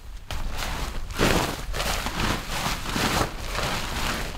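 A large sheet of tent fabric being unfolded and shaken out, rustling and flapping in several loud surges.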